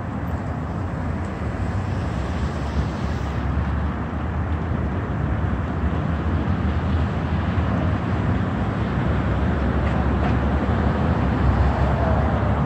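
Steady roadside traffic noise: a continuous low rumble of cars passing on the street, growing slightly louder toward the end.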